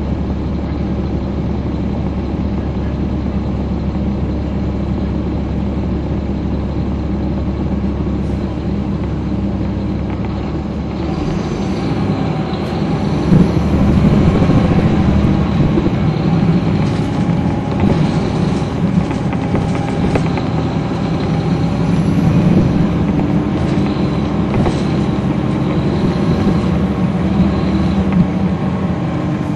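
Caterpillar C13 ACERT diesel engine of a NABI 40-SFW transit bus, heard from the rear seats. It runs steadily at first, then about eleven seconds in its note changes and it grows louder, working harder, with a few short knocks and rattles. The exhaust sounds strong, almost as if the muffler had a hole.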